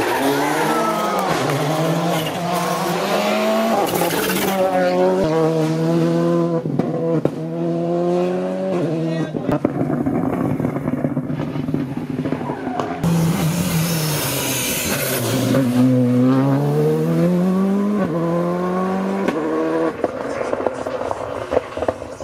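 Rally car engines revving hard at full throttle, the pitch climbing and dropping back at each gear change. About two-thirds of the way in, one car slows with its pitch falling, then accelerates away through the gears again.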